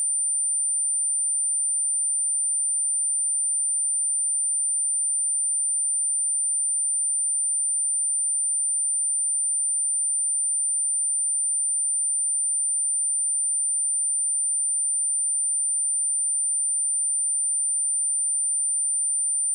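A pure 9144 Hz sine tone, one steady high-pitched whistle held at a constant level without a break: a speaker test tone, also used to shake water and dust out of a speaker.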